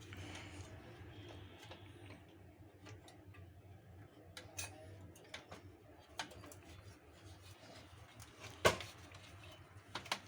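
Scattered light clicks and taps, with one sharper click about eight and a half seconds in, over a low steady hum.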